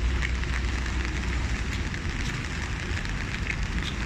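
Rain pattering with scattered small ticks of drops, over a steady low rumble like distant traffic.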